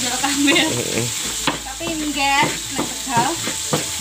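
Stone pestle grinding chilies and spices in a stone mortar, with repeated scraping and knocks. A wok of vegetables sizzles over a gas burner.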